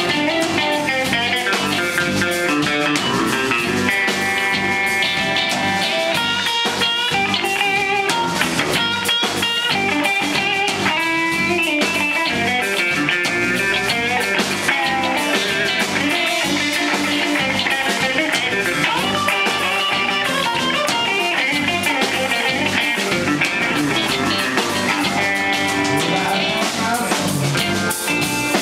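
Live blues band playing: electric guitars with bass guitar and drum kit, an electric guitar carrying the lead line.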